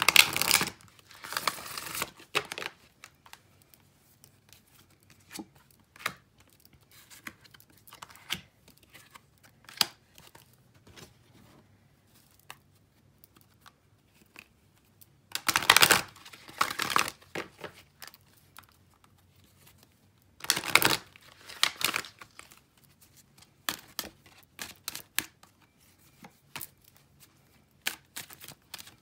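Oracle cards being handled on a cloth-covered table: shuffled, dealt and slid into place, with soft paper rustles and light taps and flicks. Three louder bursts of shuffling come right at the start, about halfway through and a few seconds later.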